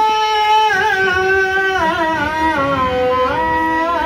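Marathi devotional music: a melody of long held notes with short ornamented turns between them, between the sung lines of the song.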